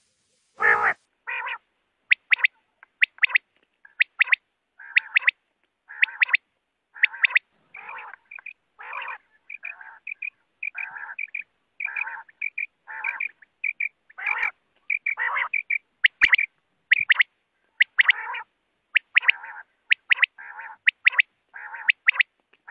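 Quail calling over and over: short, separate calls about one or two a second, some sharp and high, often in quick pairs or threes, others rougher and lower.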